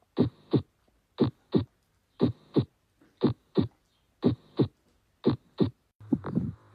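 Human heart sounds as heard through a stethoscope: a clean lub-dub repeated six times at about one beat a second, with silence between beats. The lub is the mitral and tricuspid valves closing and the dub is the aortic and pulmonary valves closing. About six seconds in, a different heart recording starts, with a steady hum beneath the beats.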